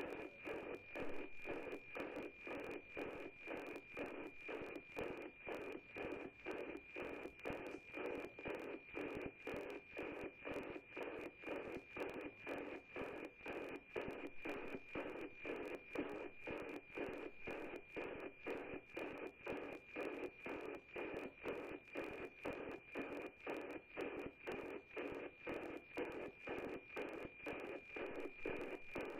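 NOAA-18 weather satellite APT image signal received by radio and played as audio: a steady high tone with a regular tick-tock of about two beats a second, each beat one scan line of the picture being sent.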